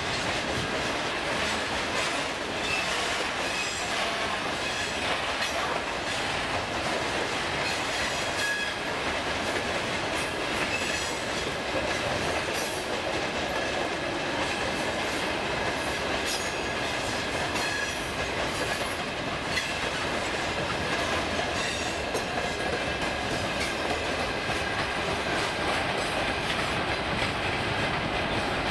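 Loaded freight wagons rolling past: a steady wheel-on-rail rumble with clatter from the wheels, and thin high-pitched wheel squeal coming and going.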